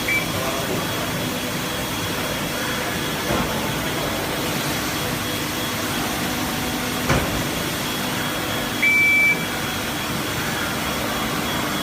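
Mizuno alkaline water ionizer beeping: a very short high beep right at the start and a longer beep of about half a second about nine seconds in, over a steady background hiss, with one brief click about seven seconds in.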